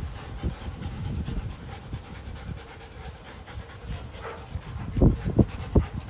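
Two young Rottweilers panting and tussling as they play tug-of-war over a toy, with a few louder short rough sounds near the end.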